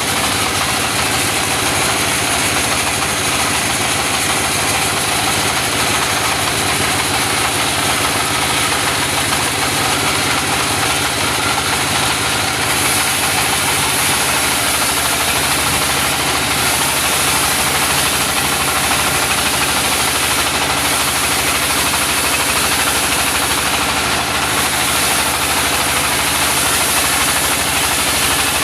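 Engine-driven portable sawmill running steadily under load as it saws a mindi log into wide boards.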